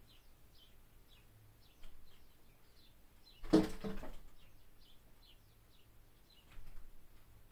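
Short bird chirps repeat a couple of times a second. About three and a half seconds in comes a sudden loud thump with a brief fluttering rustle: an American robin flying against the window, trying to get in.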